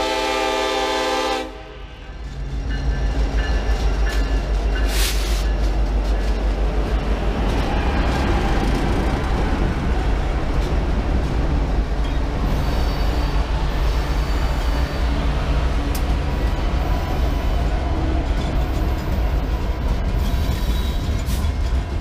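Diesel freight locomotive's air horn sounding a chord, cutting off about a second and a half in. Then BNSF diesel locomotives pass close by with a loud, steady low rumble of engines and wheels, followed by freight cars rolling past.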